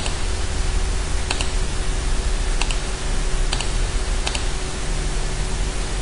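A steady hiss with a faint low hum, and four light computer mouse double-clicks about a second apart.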